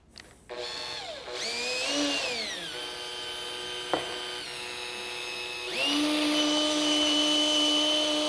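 Cordless drill running with a ring on a mandrel spinning in its chuck. The motor whine rises and falls in speed, then steps up to a steady, higher whine about six seconds in. There is a single sharp tick about four seconds in.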